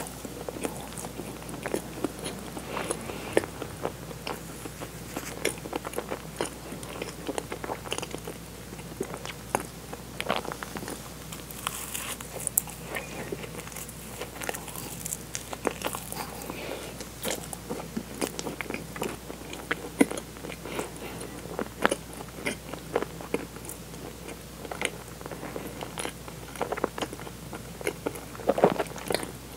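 Biting and chewing of a sugar-dusted doughnut filled with cream and red bean paste, picked up by a microphone close to the mouth: soft chewing with many small, sharp mouth clicks and smacks throughout.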